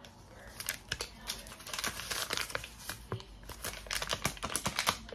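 A crumpled paper dollar bill being unfolded and smoothed between the fingers close to the microphone: a quick run of sharp crinkles and crackles that starts about half a second in and gets busier toward the end.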